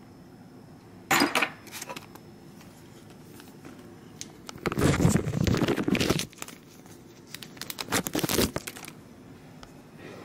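Crinkling of clear plastic coin bags being handled among a pile of geocoins. It comes in three bursts: a short one about a second in, a longer, louder one around the middle, and another near the end.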